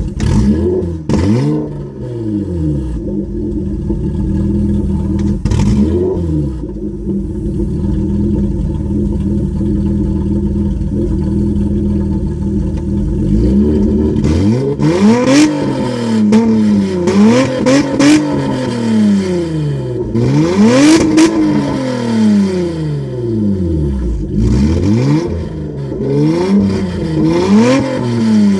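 Mazda car engine running through a straight-piped exhaust with the catalytic converter removed. It idles steadily for about ten seconds, then is revved in repeated blips, one every second or two. The note sounds like it's cammed.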